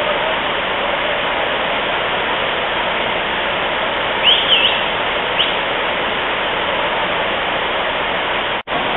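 Dunn's River Falls cascading down its rock terraces: a steady rush of falling water. A few short, high chirps sound about halfway through, and the sound cuts out for an instant near the end.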